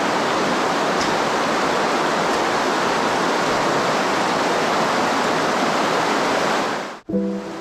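Steady rush of running water in a flooded mine tunnel. It cuts off suddenly near the end and piano music begins.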